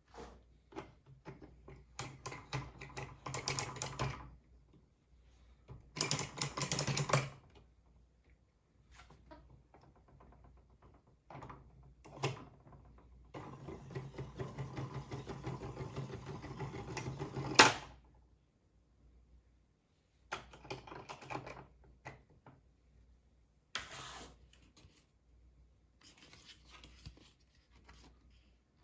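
Small plastic toy pieces and packaging being handled: irregular bursts of rapid clicking and rattling, with one longer stretch of steady rustling in the middle that ends in a sharp snap, the loudest sound.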